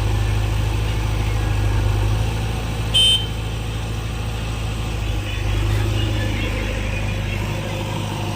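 Backhoe loader's diesel engine running steadily with a low hum, with a single short high-pitched toot about three seconds in.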